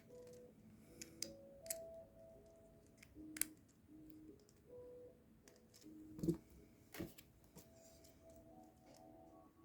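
Soft background music with a slow melody of held notes, over scattered sharp plastic clicks of Lego Technic pieces being handled and snapped together, the loudest a little over three seconds in and about six seconds in.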